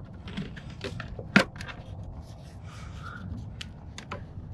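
A run of small clicks, knocks and scrapes from a BMW S1000RR's air filter being worked loose in its airbox, with one sharp, louder click about a second and a half in.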